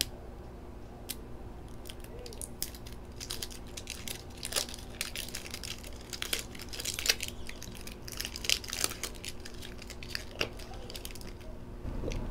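Truper 12500 PVC electrical tape being pulled off the roll and handled, giving a run of small, irregular crackles and peeling sounds as the adhesive lets go.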